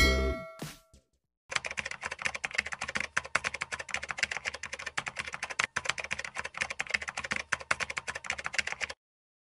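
Computer-keyboard typing sound effect: rapid, irregular key clicks that begin about a second and a half in and stop shortly before the end, set to on-screen text being typed out. A tail of intro music fades out in the first second.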